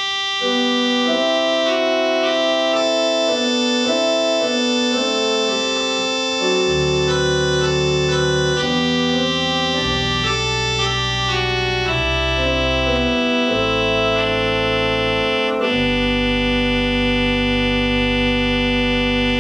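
Allen ADC-420 digital church organ playing a slow chordal piece with the 16-foot bassoon reed stop moved up an octave and a 4-foot flute added on the Great. Deep bass notes come in about six and a half seconds in, and it settles on a long held chord near the end.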